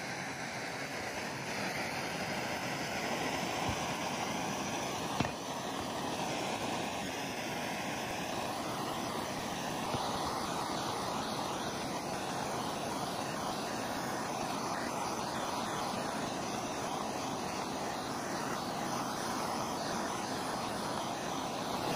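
Handheld trigger-start gas torch burning with a steady hissing roar, its blue flame heating an aluminium bearing housing to expand the bore for the bearings.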